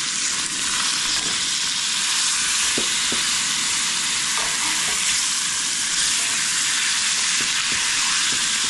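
Whole bluegill frying in butter in a cast-iron skillet: a steady, loud sizzle, with a few light clicks as metal tongs turn the fish.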